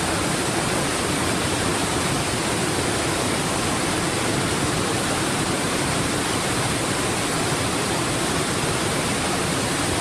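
Waterfall: water cascading over rock, a steady full rushing roar without pause.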